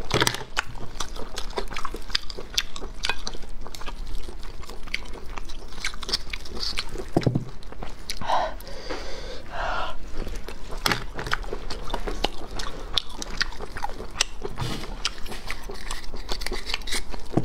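Close-miked chewing and biting of steamed garlic-and-chili abalone, with many wet mouth clicks and smacks throughout.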